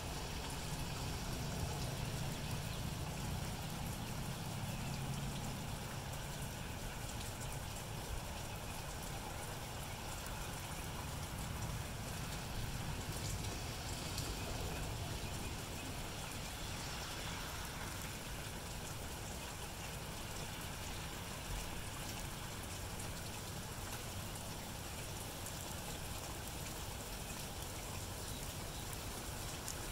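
Steady rain falling on grass and pavement, an even hiss with no single drops standing out. A low rumble sits under it for the first several seconds, then fades.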